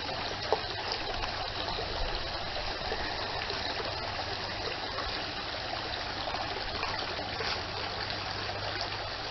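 Creek water running and trickling steadily, with a few faint ticks.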